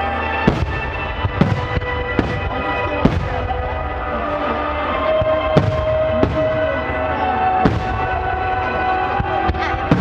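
Aerial firework shells bursting in sharp bangs, about nine, at irregular spacing with a lull in the middle, over music with long held notes.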